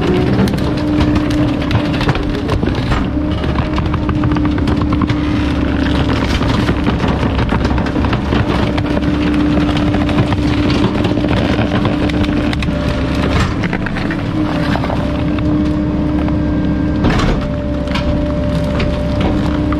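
Garbage truck running, with a steady whine and scattered knocks and rattles throughout.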